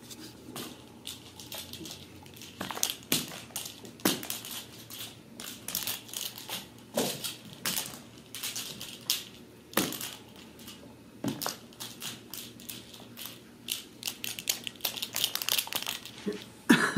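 Ragdoll kittens playing on carpet right by the microphone: an irregular run of scuffs, knocks and crinkly rustles as they scamper and bat at a plastic ball toy, with sharper knocks every second or two.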